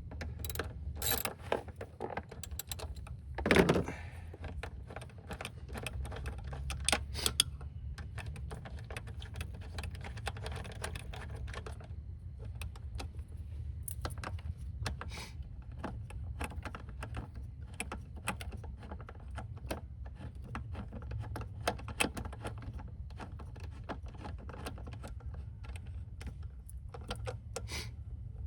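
Ratchet wrench clicking in irregular runs as bolts are run down, with metal tool clinks, one louder clunk about three and a half seconds in, over a steady low hum.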